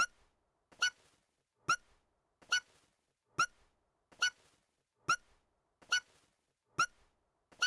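A girl's small, high-pitched voiced hiccup from an anime, the same "hic" repeating at an even pace a little faster than once a second.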